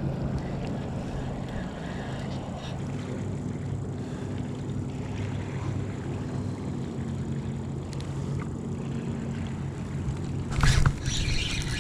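A boat motor running steadily on the water, with wind noise on the microphone. A sharp knock near the end.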